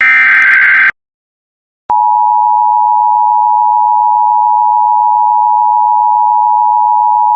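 Emergency Alert System broadcast: a SAME header data burst, a one-second electronic warble, ends just under a second in. After a second's gap the steady two-tone EAS attention signal starts and holds.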